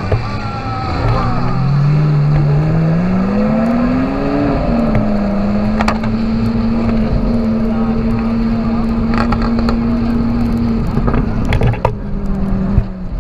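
Lamborghini supercar engine heard from on board, revving up hard as it pulls away, shifting up after a few seconds, then running at steady revs. A few sharp cracks come partway through and near the end.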